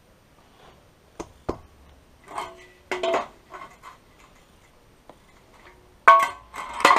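Scattered sharp clicks and metallic clanks, some ringing briefly, from a linear drain channel's steel grating being handled and an aluminium spirit level being laid across it; the loudest clanks come near the end.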